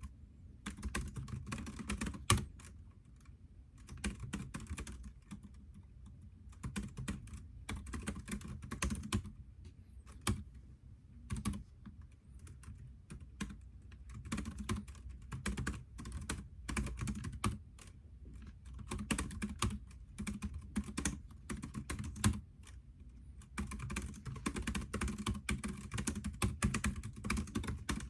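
Typing on a computer keyboard: runs of rapid key clicks broken by short pauses, with an occasional louder single keystroke.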